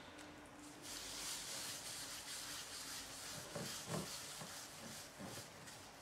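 Wet gloved hands pressing and sliding on stiff, cold clay spinning on a Shimpo pottery wheel while it is centered and coned up. The rubbing hiss grows louder about a second in, over a faint steady hum, with a few soft squelches near the middle.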